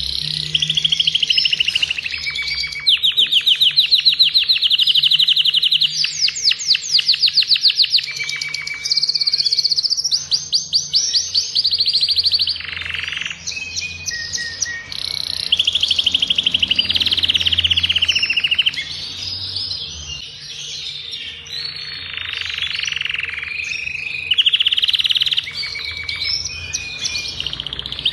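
Adult male domestic canary of the agate colour variety singing continuously: long, very rapid trills and rolling phrases, high-pitched, broken by short pauses.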